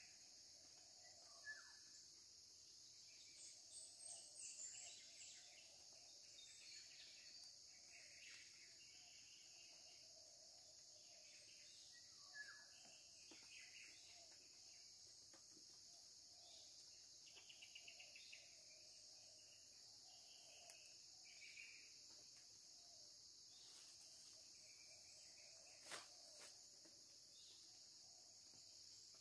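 Faint steady high-pitched insect chorus, with short bird chirps now and then, a quick trill near the middle and a few small clicks.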